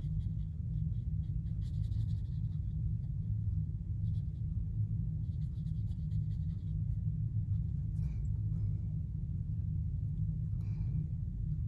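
Water brush stroking watercolour paint onto paper, faint scratchy strokes in two short runs, then two light clicks later on as the brush is worked in the paint pans. A steady low hum runs underneath.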